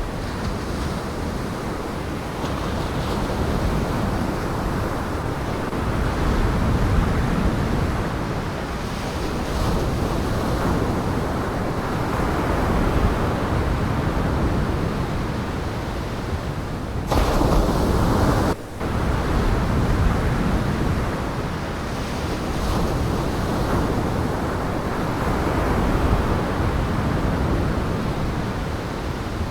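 Storm surf on Lake Michigan and high wind, a steady rushing that swells and eases, with wind buffeting the microphone. Just past the middle the sound changes abruptly, and a second and a half later it drops out for an instant.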